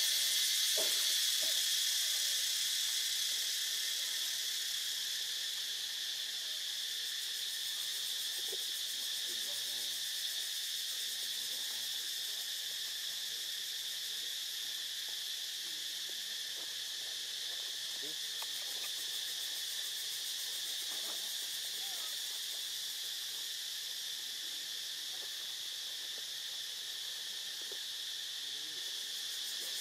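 Steady outdoor insect chorus, a continuous high buzzing hiss, with a few faint short low calls now and then underneath.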